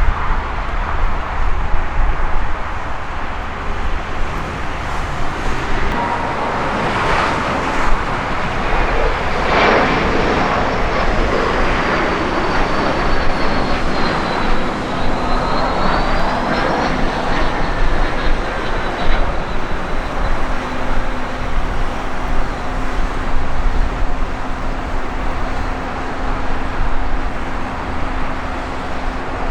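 Embraer ERJ-175 regional jet's turbofan engines passing on its landing approach: a high engine whine that sinks and then rises again, over steady rumble. The passage grows loudest between about a quarter and two-thirds of the way in.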